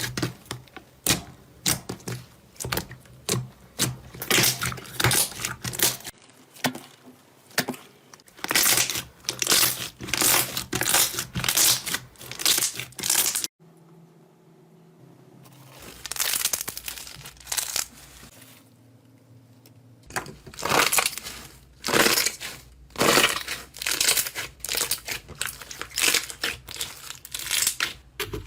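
Slime being squeezed and pressed close to the microphone, giving runs of sharp crackling, crunchy pops. The crackles stop suddenly about halfway through and start again a couple of seconds later.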